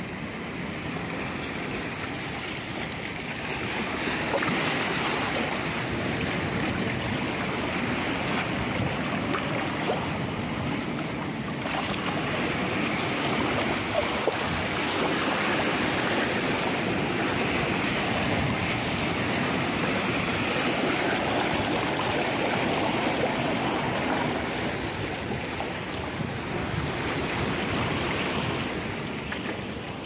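Shallow seawater rushing and washing over rocks and pebbles at the shore: a continuous wash of water that grows louder about four seconds in.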